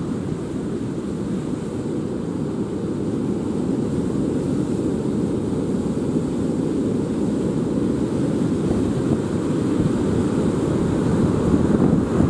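Typhoon wind blowing hard and buffeting the microphone: a steady low rush that slowly grows louder, with stronger gusts near the end.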